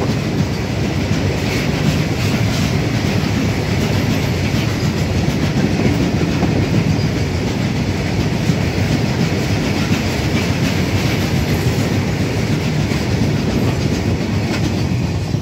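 Open-top freight wagons of a goods train rolling past close by: a steady rumble of steel wheels on rail, with repeated clicks and clatter as the wheels cross the rail joints.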